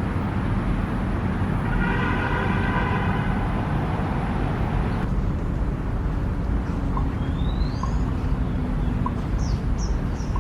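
Steady low rumble of city traffic. A humming tone with overtones comes in about two seconds in and lasts about three seconds. Near the end come a few short high bird chirps, one of them rising.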